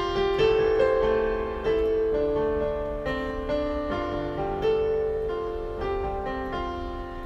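Solo piano playing a slow melody of held notes.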